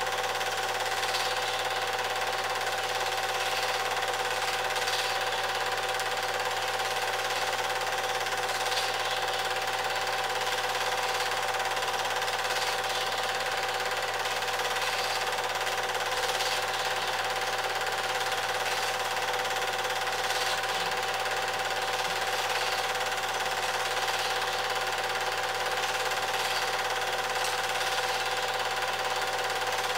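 Cine film projector running steadily, a constant mechanical whirr carrying a steady whine.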